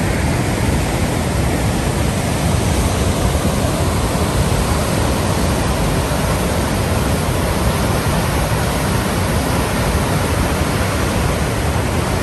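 Waterfall and whitewater rapids in full flow: a loud, steady rush of falling and churning water.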